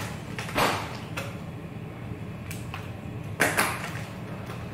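A few short handling noises of things being moved about on a kitchen counter, four brief scuffs with the loudest about three and a half seconds in.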